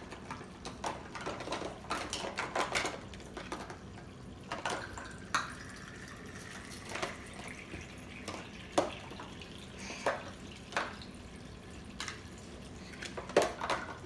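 Water trickling from a toy play sink's faucet while small plastic toy dishes and cups clatter and knock in the water-filled basins, in irregular sharp knocks throughout.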